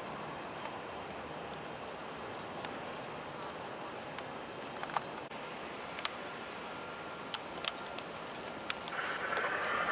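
Steady outdoor background noise with a fast, high-pitched pulsing chirp running through it, a few sharp clicks in the second half, and a louder sound swelling in near the end.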